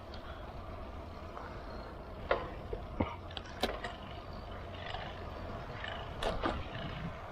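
Riding noise from a road bike's mounted camera: a steady low rumble of wind and tyres, with a few sharp clicks and knocks between about two and four seconds in and again near the end.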